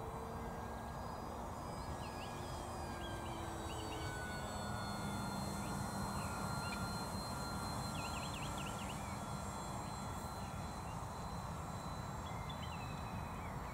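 Faint, steady drone of the Durafly Tundra RC plane's electric motor and propeller high overhead, drifting slowly in pitch over a steady hiss. Small birds chirp now and then, with a quick run of chirps about eight seconds in.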